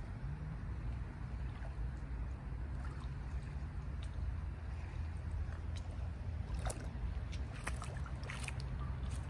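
Outdoor lakeshore ambience: a steady low wind rumble on the microphone with water lapping. A few light splashes in the shallows come near the end.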